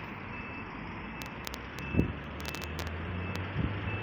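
Street noise in strong wind: the steady rush of wind, with a motor vehicle's engine hum coming in about halfway through. A faint high beep repeats at intervals, like a vehicle's reversing alarm, and there is a single thump about two seconds in.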